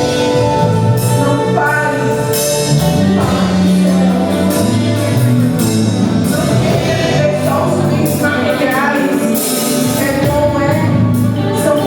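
Gospel worship music from a live band, with singing voices over sustained chords and steady drum and cymbal hits.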